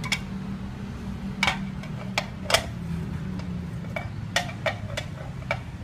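Plastic bottles and containers being handled and set down on a wooden table: scattered sharp clicks and knocks, some with a short ring, about a dozen in all, over a steady low hum.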